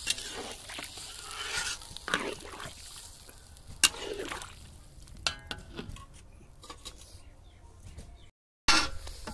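Long metal ladle stirring a thin, watery curry in a large iron kadhai, with liquid sloshing and a few sharp clinks of metal against the pan, the loudest about four seconds in.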